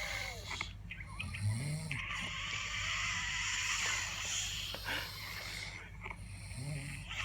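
Snoring of a sleeping man with severe sleep apnea: two short, low snores, one about a second and a half in and one near the end, with a long, breathy breath between them.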